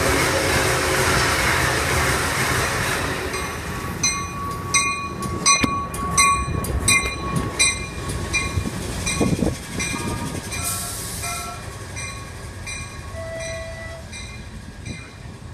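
A Norfolk Southern diesel freight locomotive passes close by, loud for the first few seconds. Then freight cars roll past with sharp wheel clicks over the rail joints and short metallic wheel squeals, fading toward the end.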